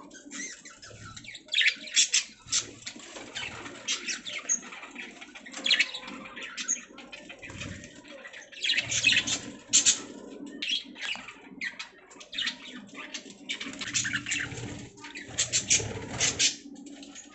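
Budgies (budgerigars) chirping and chattering: many quick, high chirps in bunches, with brief pauses between, and a few soft low thumps among them.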